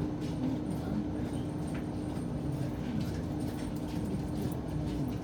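Sanriku Railway diesel railcar running, a steady engine hum over low rumble with scattered light knocks.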